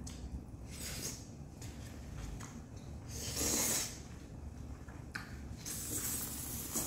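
Two long breathy hisses close to the microphone, one about three seconds in and a longer one near the end, with a few faint clicks between them: mouth and breath noises from people eating.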